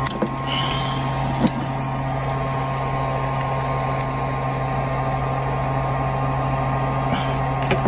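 A headlight bulb being worked into its plastic socket, with a few small clicks, over a steady low hum.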